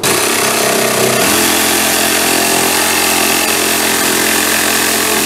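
Electric power tool cutting an opening through a plywood tabletop, starting abruptly and settling into a steady run about a second in.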